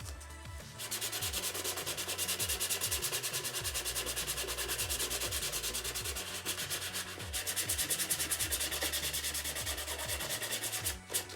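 Sandpaper, 220 grit, sanding the painted cowling of a balsa RC model airplane: rapid, evenly spaced scraping strokes that start about a second in, ease briefly near the middle, and stop just before the end.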